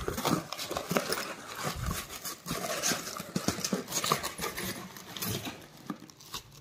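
Cardboard shipping box being handled and opened: irregular knocks, scrapes and rustles of cardboard, with honeycomb kraft-paper packing pulled out near the end.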